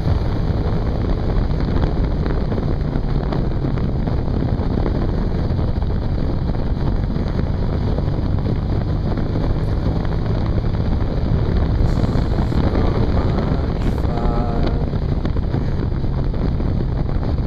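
Wind rushing over the microphone while riding, with the steady drone of a 2005 Suzuki SV650's V-twin engine underneath at an even road speed.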